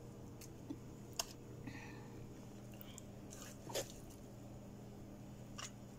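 Thick banana oatmeal batter being scooped and dropped into a metal muffin tin: soft wet squishing with a few light clicks against the tin, the loudest about four seconds in.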